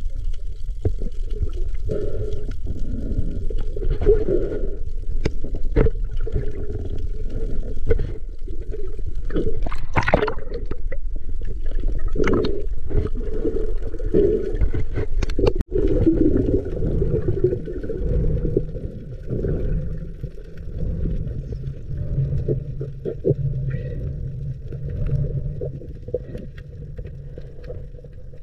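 Muffled water gurgling and bubbling as picked up by an underwater camera, with scattered clicks and knocks and a louder rush about a third of the way in.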